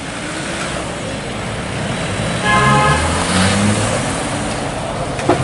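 Road traffic noise, with a vehicle horn sounding once, briefly, about two and a half seconds in.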